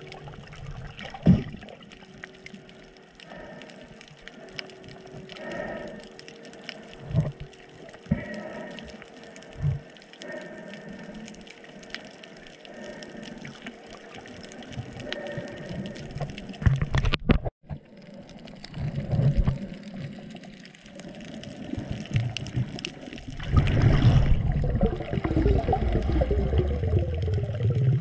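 Water sloshing and gurgling around a snorkeler's camera, with scattered knocks and a brief dropout just past halfway. About two-thirds through it grows into a louder, steady churning of water.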